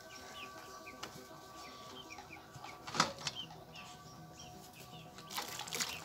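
Plastic bottles being washed by hand in soapy water in a metal basin: soft sloshing, a sharp knock about three seconds in and a few lighter clicks, with splashing near the end. Small birds chirp repeatedly in the background.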